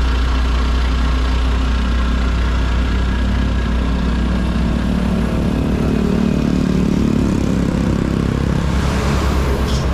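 FAW JH6 heavy tractor truck's diesel engine idling steadily, a loud low even hum heard close to the grille.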